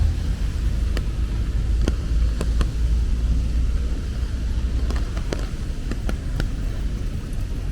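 City street ambience in the rain: a steady low traffic rumble, with scattered sharp ticks of raindrops falling at irregular moments.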